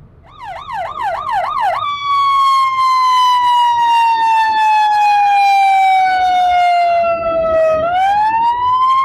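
Emergency vehicle siren, loud: a fast warbling yelp for about a second and a half, then a long, slowly falling wail that swoops back up in pitch near the end.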